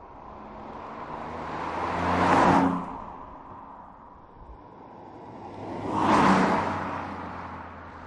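Alfa Romeo Giulia Quadrifoglio's twin-turbo V6 driving past twice, each pass swelling to a loud peak and falling away, the first dropping off sharply.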